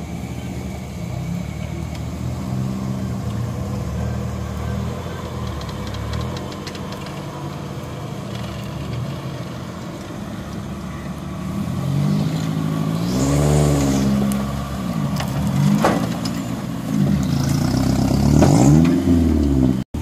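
Off-road 4x4's engine running steadily under load, then revved up and down several times in the second half. One sharp knock comes among the revs.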